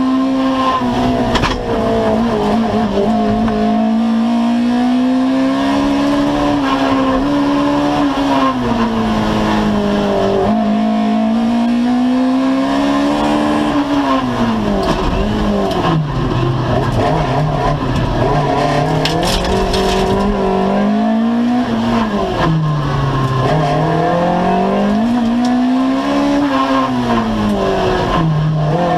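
Rally car's engine heard from inside the stripped cockpit, pulling hard with its revs climbing and dropping through gear changes. In the second half the revs fall deeply several times as it lifts and brakes for corners, then climb again.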